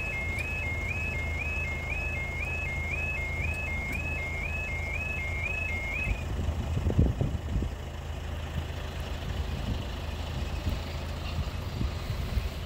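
Level crossing's two-tone yodel alarm warbling a little under twice a second over a steady low hum, cutting off about six seconds in once the barriers are fully down. A few low thumps follow about a second later.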